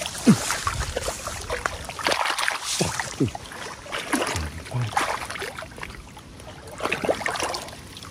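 Hands sloshing and churning through shallow, thick muddy water, in irregular splashes and wet slaps as they grope in the mud.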